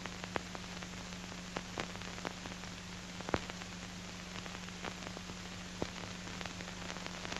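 Surface noise of a 1934 sound film's soundtrack: a steady hiss with a low hum under it and scattered clicks and pops.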